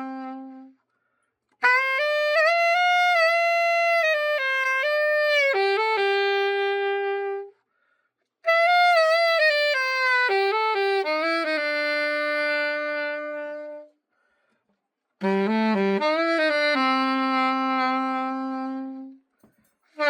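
A Yanagisawa A-800 alto saxophone being play-tested after its setup: three phrases of held and moving notes, each followed by a short silence, with the next phrase starting right at the end.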